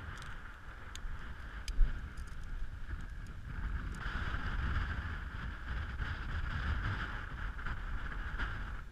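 Wind buffeting the microphone: a steady low rumble with a rushing hiss that grows stronger about four seconds in. A few light clicks and one sharp knock sound about two seconds in.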